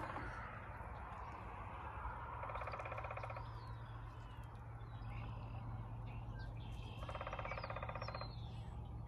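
Woodpecker drumming on hollow wood: two rapid drum rolls, each about a second long and about four seconds apart. Faint birdsong in between.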